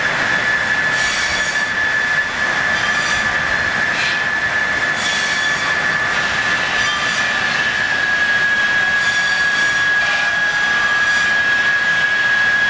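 Steam-powered sawmill machinery running, with a steady whine and a rushing noise that swells and fades about every two seconds.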